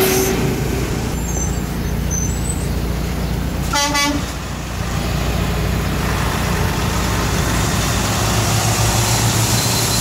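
A semi-truck gives one short horn toot about four seconds in. Its diesel engine rumbles on underneath, growing stronger near the end as the Freightliner tractor-trailer pulls past close by.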